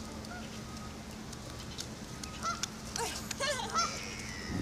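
Waterbirds calling: a run of short honking calls in the second half, over a steady faint background.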